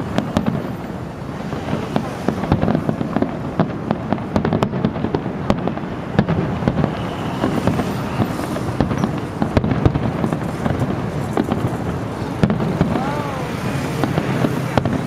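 Aerial fireworks bursting in quick succession, with many sharp cracks and bangs over a continuous low rumble.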